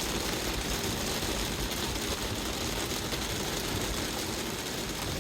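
Rain and hail falling steadily, a dense even hiss with a low rumble underneath.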